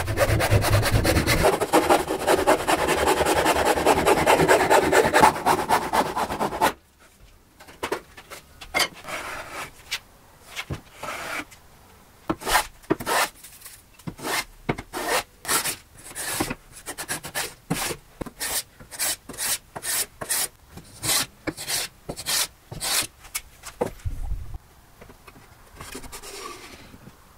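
A hand-saw with a wooden handle cutting through a board with fast, even strokes for about the first seven seconds; it stops suddenly. After that come short separate strokes of a hand plane on the edge of a thin board, about one or two a second.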